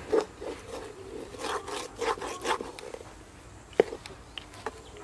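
Metal spatula scraping and pressing stiff semolina dough against a metal wok: a run of rubbing scrapes, then a few lighter ticks, with a sharp tap of metal about four seconds in.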